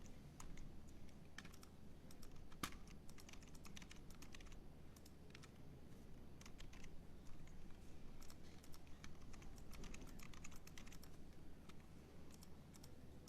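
Faint typing on a computer keyboard: irregular runs of light keystrokes with pauses, and one sharper click about two and a half seconds in, over a steady low hum.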